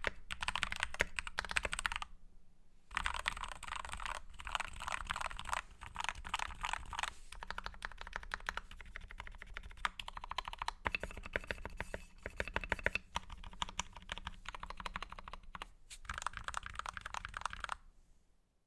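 Fast typing on a Novice68 mechanical keyboard with lubed Gateron Black linear switches: a dense run of key clacks, with a short pause about two seconds in and the typing stopping just before the end.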